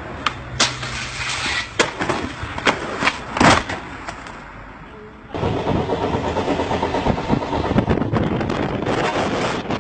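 Sharp clacks and knocks, as of a skateboard hitting a rail and the ground, over the first few seconds. About five seconds in, the sound switches abruptly to a steady rushing rumble of wind and a moving train, heard from an open train window.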